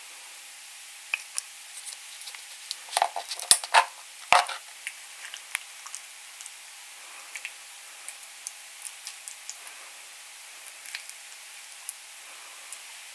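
A plastic food tub being opened, with a run of sharp plastic clicks and snaps about three to four seconds in. After that, a plastic spoon scoops spicy seasoned cockles out of the tub onto rice, with scattered small clicks.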